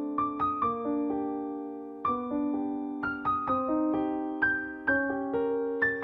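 Background piano music: a melody of struck notes, a few a second, each ringing and fading.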